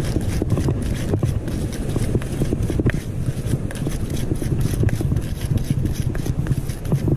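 Hands scraping and crushing fishing groundbait against a rock, a dense run of small scrapes and taps close to the microphone, over a steady low rumble.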